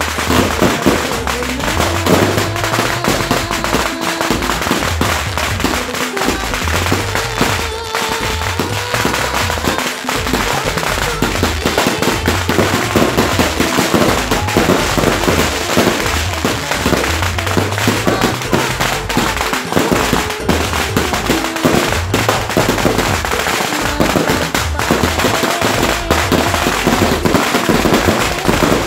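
Fireworks going off one after another, a dense run of bangs and crackles from aerial bursts, with music playing underneath.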